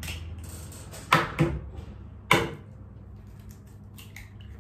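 Sharp knocks against a mixing bowl as eggs are cracked in: two close together about a second in, a third about a second later, then a few light clicks near the end, over a steady low hum.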